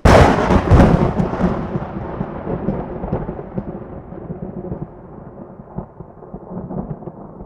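A thunderclap: a sudden sharp crack that breaks into crackling, then a long rolling rumble that slowly fades and grows duller.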